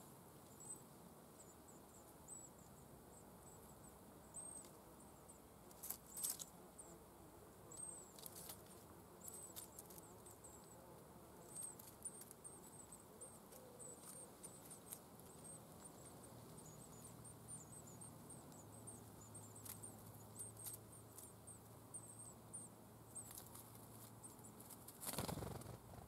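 Faint, thin, very high-pitched cheeping in quick runs from yellowhammer nestlings begging at the nest as an adult visits, with a few soft rustles and ticks in the grass and a louder rustle near the end.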